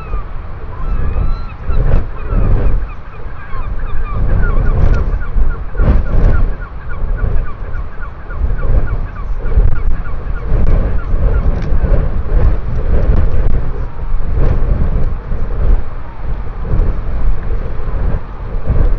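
Strong wind buffeting the microphone in gusts, a heavy rumbling rush that swells and eases. Over it, for the first several seconds, a bird gives quick repeated chirping calls.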